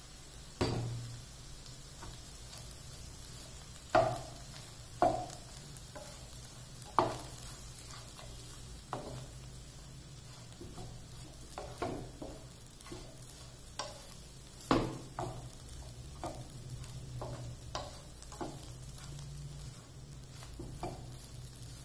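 A spatula stirs and scrapes crumbled bread upma in a nonstick kadai, knocking against the pan at irregular intervals every second or two, over a faint steady frying sizzle.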